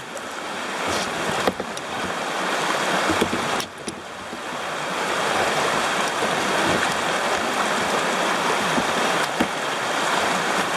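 Rushing whitewater of a river rapid around a kayak, growing louder over the first few seconds and then holding steady, with a few sharp knocks.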